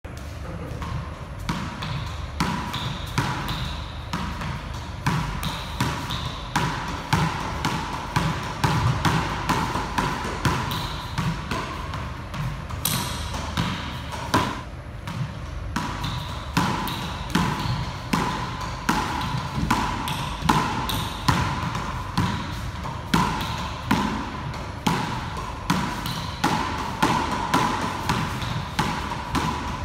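A solo racquet-and-ball rally on an enclosed court: a steady run of sharp hits, roughly two a second, as the small ball strikes the racquet, the front wall and the wooden floor, echoing in the court. A steady hum runs underneath.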